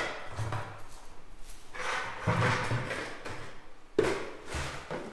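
Knocks and scraping as a wheel and tire are handled onto a bucket, with a sharp knock at the start and another about four seconds in, and rubbing noise between them.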